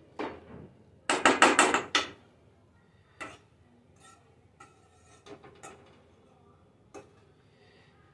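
A metal ladle striking a metal kadai: a quick run of about half a dozen loud clanks about a second in, then a few faint scattered knocks.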